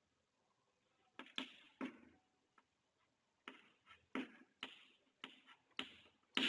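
Chalk writing on a chalkboard: sharp taps and short scratches as digits are written, a pair about a second in, then a quicker run of strokes from about three and a half seconds on.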